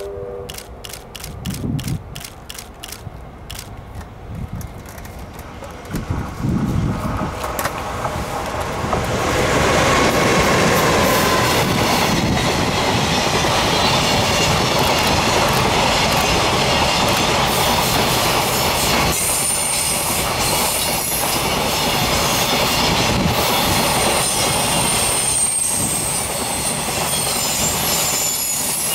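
A JR Freight EH200 electric locomotive hauling a long container train passes close by. The rumble and rail clatter build from about six seconds in and stay loud and steady as the wagons roll past. Thin, high wheel squeal comes from the curved track in the second half.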